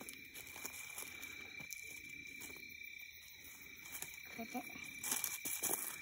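Footsteps and rustling in dry leaf litter on a woodland floor, over a steady high insect drone. The rustling grows louder about five seconds in.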